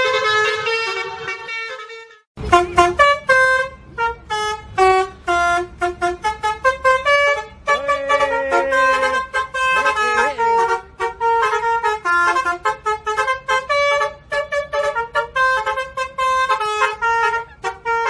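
Basuri telolet bus horn, a multi-tone musical horn, holding a chord that fades out, then after a short break playing a fast tune of short, separate notes.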